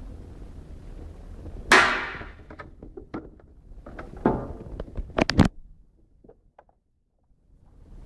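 Handling noise from a small plastic USB mini fridge: a low rumble of the camera being moved, a sudden loud clatter about two seconds in, then several sharp plastic knocks and clicks around four to five and a half seconds in.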